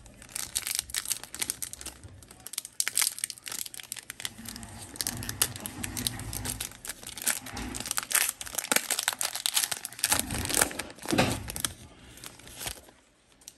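Plastic foil wrapper of a Topps Chrome trading-card pack being torn open and crinkled in the hands: a dense run of sharp crackles that dies away shortly before the end.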